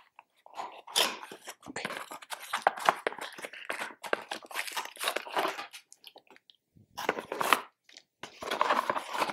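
Packaging being handled and opened: irregular crinkling, rustling and tearing with small knocks, as a dashcam's hardware kit is unpacked. There are short pauses about six and eight seconds in.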